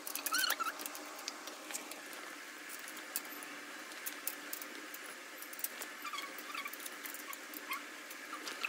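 Scattered light clicks and rustles of hands handling a desk frame's motor cable and small metal and plastic parts, with a few faint short high squeaks over a faint steady hum.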